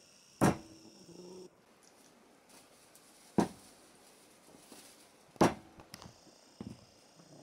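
Large knife chopping meat and bone on a round wooden chopping block: three heavy chops spaced a few seconds apart, with a few lighter knocks near the end.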